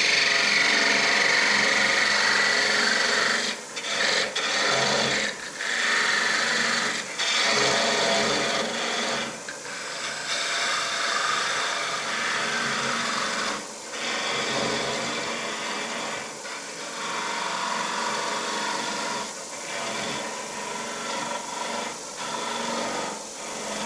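A parting tool cutting into a curly maple box spinning on a wood lathe at about 1400 RPM, parting it off: a steady scraping hiss, broken by several brief pauses as the tool is eased back.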